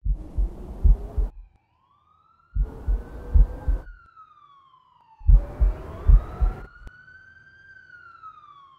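A police siren wails in slow rises and falls. Three times, for about a second and a half each, heavy low thumps and a rush of noise come in over it and then cut off abruptly.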